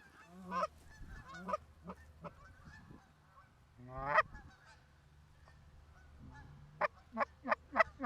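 Goose honks: a few single honks spread through the first half, then a quick run of honks, about three a second, over the last second or so.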